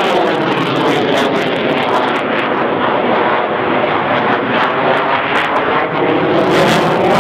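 NH90 military helicopter in display flight: a loud, steady roar of turbine engines and rotor, its tone sweeping up and down as the helicopter moves.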